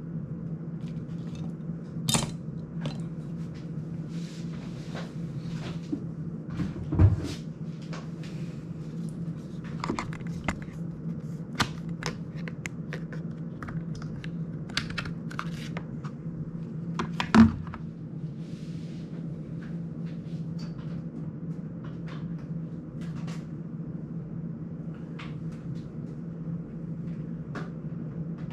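Scattered clicks, taps and knocks of drone parts and small tools being handled on a workbench, with two louder thumps, about a quarter of the way in and again past halfway, over a steady low hum.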